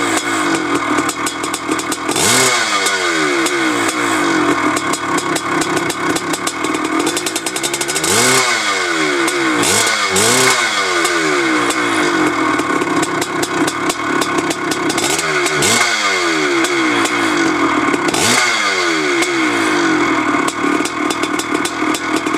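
Two-stroke dirt bike engine idling, blipped up to a sharp rev and back down about half a dozen times. A sound meter reads it at about 85 dB idling and around 98–99 dB when revved.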